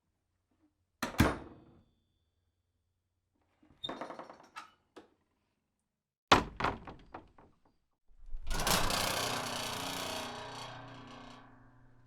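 A run of door sounds: a door shut with a sharp thunk about a second in, a cluster of small latch and handle clicks around four seconds, and a harder slam with rattling after it just past six seconds. Then a longer noisy door sound starts about eight seconds in and fades out over about four seconds.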